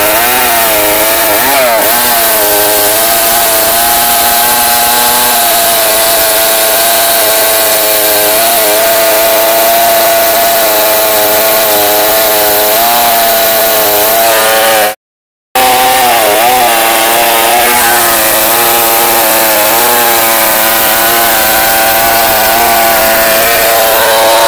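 Two-stroke chainsaw mounted in a chainsaw mill, running at high revs under load as it rips lengthwise through a big log to cut a slab. The engine note holds steady with small wavers, breaks off abruptly for about half a second roughly two-thirds of the way through, then carries on.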